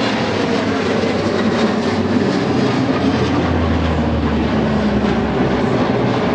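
A four-turboprop AP-3C Orion and a twin-jet P-8A Poseidon flying past low overhead, their engines making a loud, steady rumble. A low drone swells about halfway through as the Orion passes closest.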